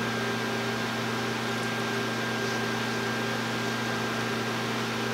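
Steady low hum with a faint high whine over an even hiss, unchanging.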